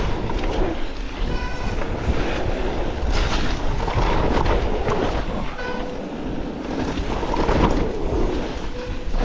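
Mountain bike rolling fast down a loose gravel trail: tyres crunching over stones and the bike rattling over the bumps, under a steady rush of wind on the handlebar camera's microphone.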